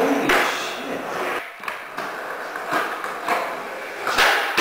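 Skateboard on a concrete garage floor: wheels rolling with a steady rumble, broken by several sharp clacks of the board, the loudest a slap near the end as a trick is landed.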